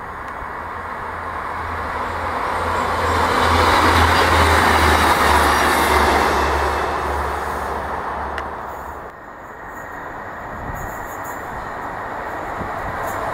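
Class 158 diesel multiple unit passing on the line: its engine drone and wheel-on-rail noise swell to a peak about four seconds in and then fade away. After a cut about nine seconds in, a Class 150 diesel multiple unit is heard approaching, growing steadily louder.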